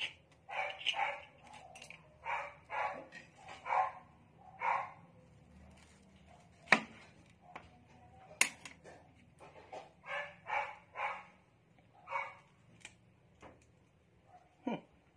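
A dog barking repeatedly in short runs of barks. About halfway through come two sharp knocks a second and a half apart.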